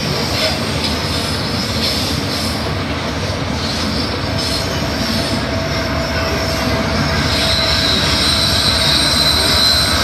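Freight train of covered hopper cars rolling past at close range: a steady rumble of steel wheels on the rails. A thin squeal from the wheels sets in about four seconds in, and a higher-pitched squeal joins near the end.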